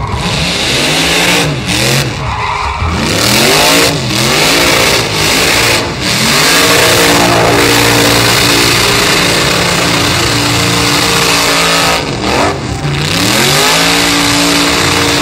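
Engine revving hard in a tyre-smoking burnout. The pitch rises and falls several times, then holds high and steady for several seconds. It dips briefly about twelve seconds in, then climbs back and holds.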